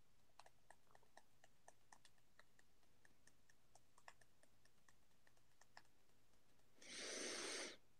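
Near silence, with faint, irregular light ticks as a wood-burning pen works across a wooden board. About seven seconds in comes a short hiss lasting about a second.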